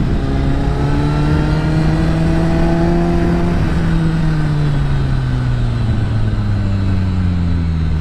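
2010 Kawasaki ZX-10R's inline-four engine through an Akrapovič carbon-fibre exhaust, riding along: the engine note climbs a little over the first few seconds, then falls steadily as the bike slows off the throttle.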